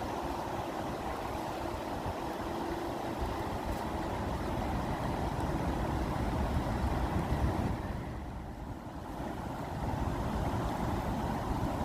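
Water flowing steadily with a low, even rushing sound, dipping briefly about eight seconds in.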